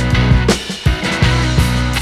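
Background rock music with a drum kit and bass line.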